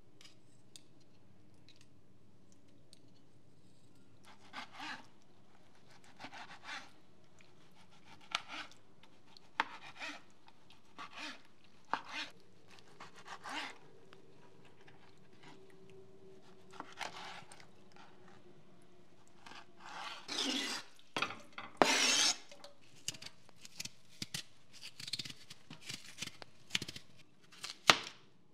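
Kitchen knife working through raw salmon: intermittent short scraping and slicing strokes with light taps of the blade on the board, a few longer, louder scrapes, then quicker sharp knife taps on a plastic cutting board as a potato is chopped near the end.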